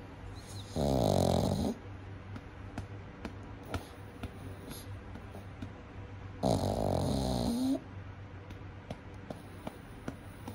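Pug snoring in its sleep: two loud, rattling snores, one about a second in and another about five seconds later, each lasting about a second.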